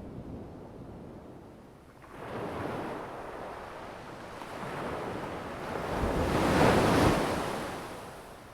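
Ocean waves breaking on the shore: a hissing wash of surf that swells from about two seconds in, is loudest near the end as a wave breaks, then fades.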